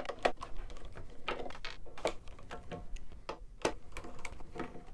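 Irregular light clicks and small rattles of a hand screwdriver and loose screws being handled while the screws are taken out of a UPS's metal case.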